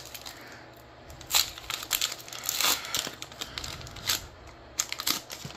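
Foil wrapper of a Pokémon card booster pack crinkling and tearing as it is pulled open by hand: an irregular string of sharp crackles, louder at several points.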